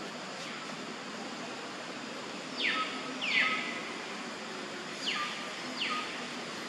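Hill mynas calling: two pairs of whistled calls, each sweeping steeply down in pitch and ending in a short level note. The first pair comes about two and a half seconds in, the second about five seconds in, over a steady background hiss.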